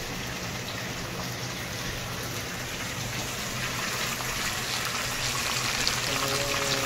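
Two whole red snapper sizzling in hot oil in a nonstick frying pan: a steady crackling hiss that grows a little louder about four seconds in. A low steady hum runs under it.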